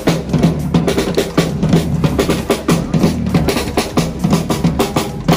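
A street drum group playing snare-type drums and djembes together in a fast, steady beat of many sharp strikes.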